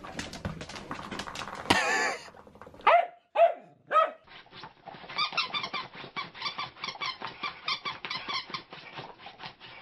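A small rubber squeaky dog toy squeaking several times as a dog noses it on a tile floor, each squeak short and falling in pitch. Light clicks come before the squeaks. From about halfway on there is a quick, even run of high squeaks, about four a second.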